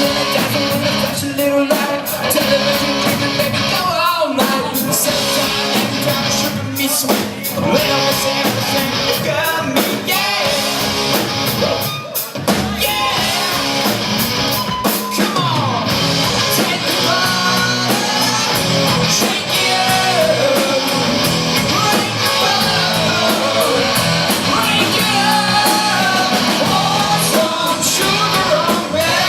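Rock music with a singer, electric guitar and drum kit, playing without a break.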